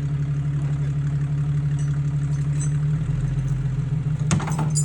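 Jeep Wrangler engine idling steadily, with a brief sharp clatter about four seconds in.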